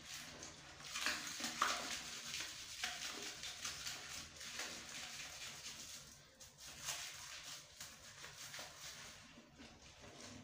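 Toilet brush scrubbing inside a porcelain toilet bowl, its bristles swishing through foamy water and cleaner in quick, uneven strokes that grow fainter towards the end.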